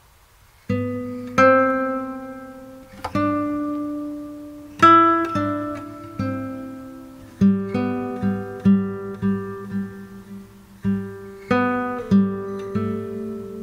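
Background music: a solo acoustic guitar playing slow plucked notes and chords, each ringing out and fading, starting about a second in.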